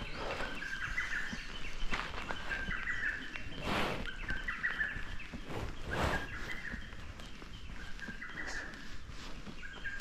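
Wild birds singing in woodland: short high phrases repeated every few seconds over a steady, fast-pulsing chorus, with two brief noises about four and six seconds in.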